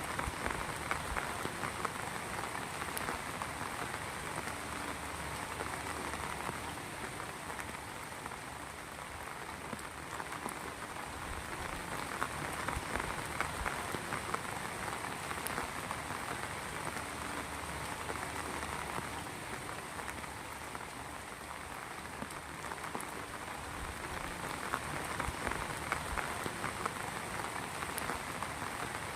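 Rain falling steadily as a dense patter of drops, swelling slightly in loudness now and then.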